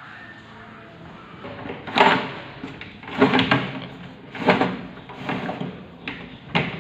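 A series of knocks and rattles, about six in a few seconds, the loudest about two seconds in, as insulated wires are pushed and pulled inside a sheet-metal electrical panel enclosure.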